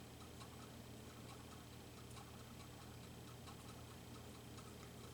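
Near silence: faint, regular ticking over a low steady hum of room tone.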